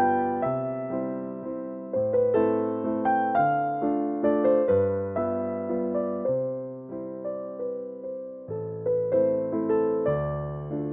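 Background piano music: a melody of struck notes that each fade away, over low bass notes that change about every second and a half.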